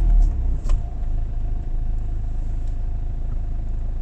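Car engine running steadily, heard from inside the cabin as a low rumble, with one short click less than a second in.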